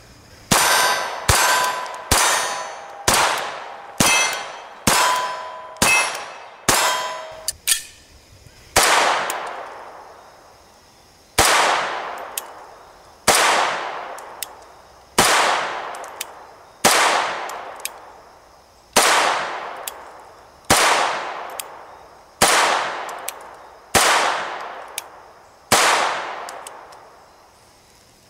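Chiappa 1911-22 .22 LR pistol being fired repeatedly: a quick string of shots under a second apart, some with a ringing tone, through the first eight seconds, then slower shots about every two seconds, each trailing off in an echo.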